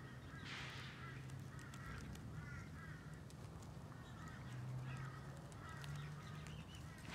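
Birds calling in short, repeated warbling phrases, over a steady low hum, with faint clicks and a brief rustle about half a second in from a cat chewing grass.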